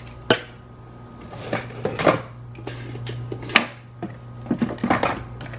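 Plastic supplement bottles being handled, picked up and set down beside a cabinet: a string of irregular clicks and knocks. A steady low hum runs underneath.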